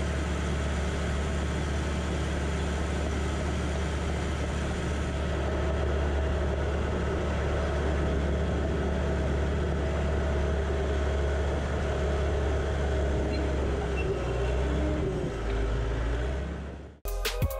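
John Deere 450J crawler dozer's diesel engine running steadily, heard from the operator's seat. It cuts off suddenly near the end.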